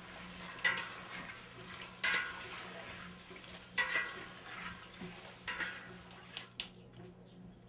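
A utensil scraping and clinking against a cooking pot while food is scooped out, a stroke about every second and a half, with a few lighter taps near the end, over a faint steady low hum.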